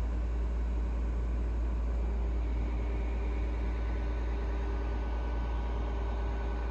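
Passenger train cabin noise while under way: a steady deep rumble with an even hiss and a faint hum.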